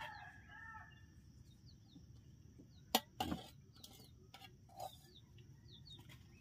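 Small birds chirping faintly and repeatedly, with a chicken's call fading out in the first second. A few sharp clicks and knocks, the loudest about three seconds in, come from a small knife and spoon working chillies against a cleaver blade on a wooden chopping block.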